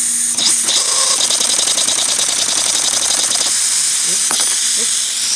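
Homemade twin-cylinder single-acting air engine running on compressed air: a loud, steady hiss of air through the inlet and ports over a fast mechanical rattle of the pistons and crank.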